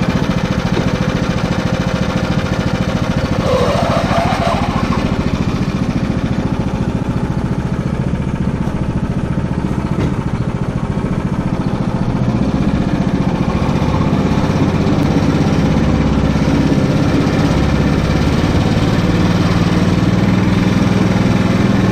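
Engine of a homemade karakat, a low-pressure-tyre all-terrain vehicle, running steadily as it drives along a forest track. It gets slightly louder in the second half.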